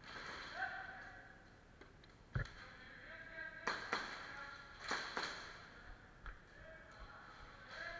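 Scattered airsoft fire: a handful of sharp cracks and knocks, the loudest about two and a half seconds in, then two quick pairs. Faint voices call in the distance.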